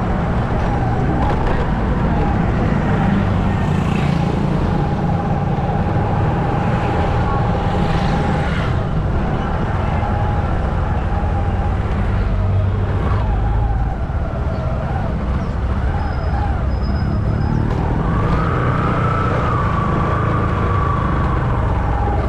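Steady vehicle engine and road noise from driving along a city street, with a steady high whine that holds for several seconds at a time. A few brief sounds from passing street traffic come through on top.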